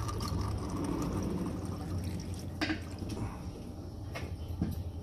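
A thin stream of watery used engine oil and flush cleaner trickling from the drain-plug hole into a full drain pan, with a few sharper drips splashing into the pool. This is the end of draining the first flush.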